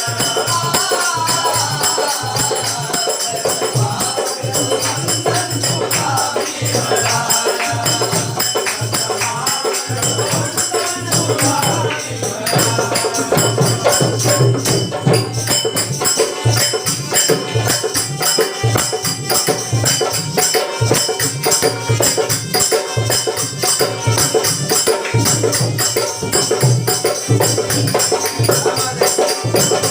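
A shahiri troupe performing a Marathi vandan geet, a devotional salutation song, with singing over rhythmic hand percussion. Voices are clearest in the first part. About twelve seconds in it gives way to a slightly louder stretch carried by steady, busy percussion.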